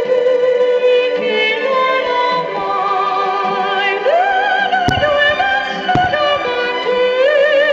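Loud operatic-style music with a singer's wavering vibrato, played over loudspeakers, with two firework bangs about a second apart past the middle.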